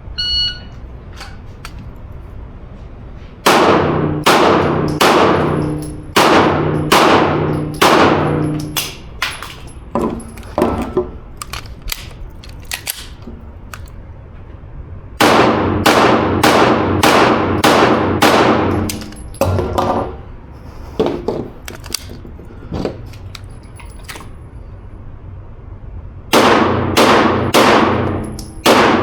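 A shot-timer start beep, then three rapid strings of pistol shots with gaps between them and a few lighter single reports. Struck steel targets ring under the shots.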